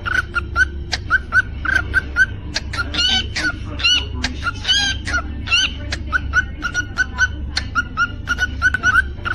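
Cockatiel chirping: a quick run of short, upward-hooked chirps, several a second, with a few longer rising whistles in the middle, over a steady low hum.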